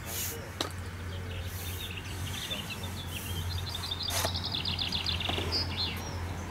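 Small birds singing, with scattered high chirps and a fast trill of repeated notes from about two and a half to five seconds in. A steady low hum sits underneath, and there are two sharp clicks, one early and one about four seconds in.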